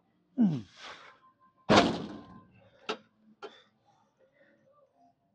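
A man's strained groan, falling in pitch, at the end of a set on a lying leg curl machine. Then a heavy thud as the machine's weight stack drops back onto its rest, and two lighter knocks as he climbs off.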